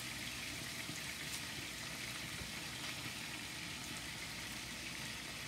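Clarified butter sizzling steadily in a nonstick frying pan, with garlic and ginger paste frying in it.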